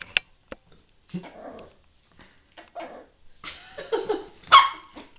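Puppies yipping and giving small barks while playing: several short calls, the loudest and highest one about four and a half seconds in, with a couple of sharp clicks near the start.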